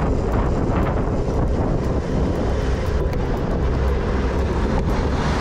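Wind rushing over the microphone and tyres rolling on a gravel bike at speed: a steady, loud low rumble.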